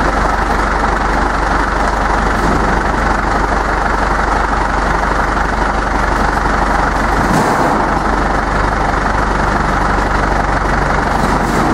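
Tractor engine running steadily and loudly, a continuous even drone.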